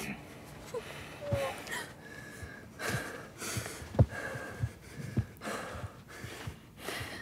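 Heavy breathing and gasps during a scuffle, with a few dull thumps, the loudest about four seconds in.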